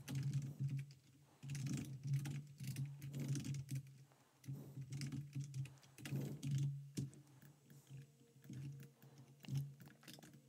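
Computer keyboard being typed on in quick bursts of keystrokes with short pauses between them, as code is entered.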